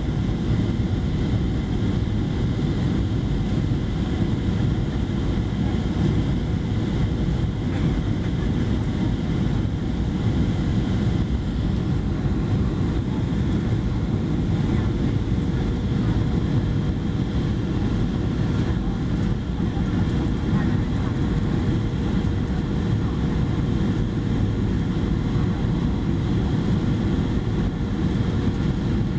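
Steady cabin noise of a Boeing 737-700 descending for landing, heard by the wing: its CFM56-7B turbofans and the airflow make an even low rush, with a faint steady hum running through it.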